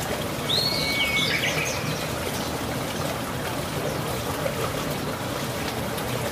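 Birds chirping over a steady rush of running water, with a few short chirps about half a second to a second and a half in.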